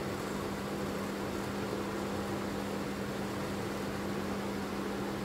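Watchmaker's Levin lathe motor running at a steady speed with an even hum and a constant low tone, as a 0.15 mm drill bores into an escape-wheel pivot.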